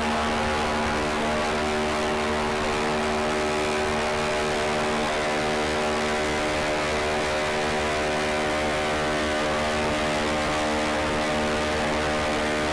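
Steady, even whirring drone of a small coaxial-rotor helicopter, NASA's Ingenuity, its spinning rotors giving a constant many-toned hum that does not change in pitch or level.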